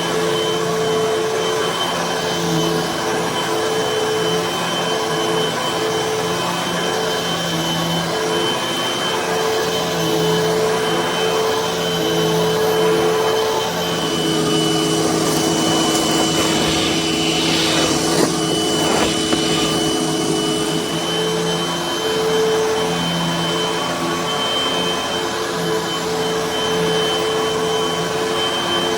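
Hoover vacuum cleaner running on carpet: a steady high motor whine over lower hum tones that waver and shift as it works, with a stretch of brighter, louder hiss about halfway through.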